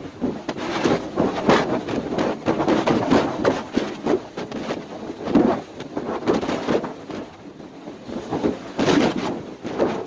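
Strong snowstorm wind gusting and buffeting the microphone in irregular surges, loudest about a second and a half in, midway, and near the end.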